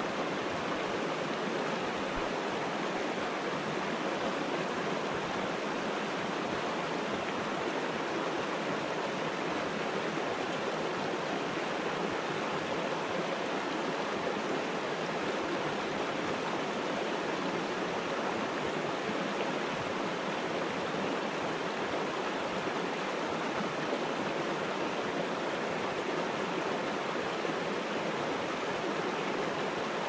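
Shallow mountain river rushing over and between boulders in small rapids: a steady, even rush of water with no breaks.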